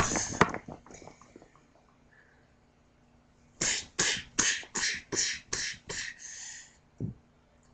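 A child making fight sound effects with his mouth while playing with toy figures: seven short hissing 'tsh' bursts at about two a second, then a longer hiss, and a single thump near the end.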